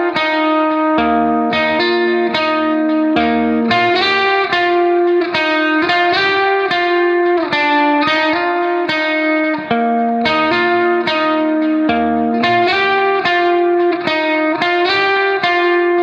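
Background music: a plucked guitar melody of quick, evenly paced notes.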